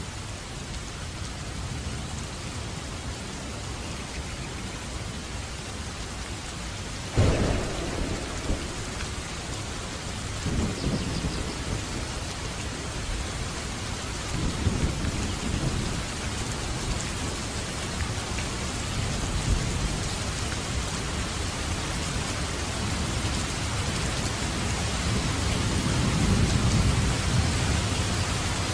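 Steady rain falling, with a sudden clap of thunder about seven seconds in, followed by low rolling rumbles of thunder that swell again near the end.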